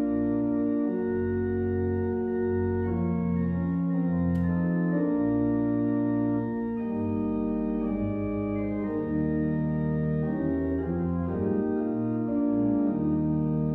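Church organ playing a slow passage of sustained chords, with the bass notes changing every second or two.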